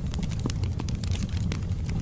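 Wood fire burning in a fireplace: logs crackling with irregular sharp pops and snaps, several a second, over a steady low rumble of flames.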